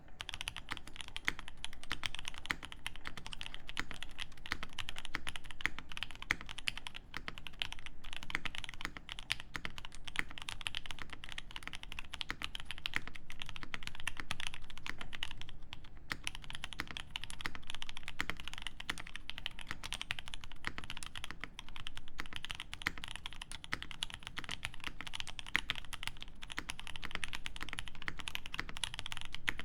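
TOMO mechanical keyboard with lubed OP Black switches in an aluminium plate and GMK keycaps, being typed on quickly and steadily. There is a brief pause about sixteen seconds in.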